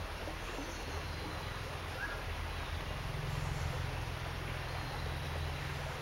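Forest stream ambience: a steady hiss of flowing water over a low, steady rumble, with one short bird chirp about two seconds in.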